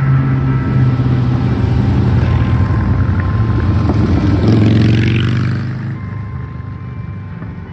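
A motor vehicle driving past close by, its engine drone loudest about five seconds in and then fading away. Church bells ring faintly underneath.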